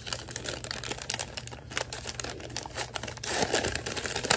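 A paper gift bag crinkling and rustling as it is opened by hand: a dense crackle that grows louder about three seconds in.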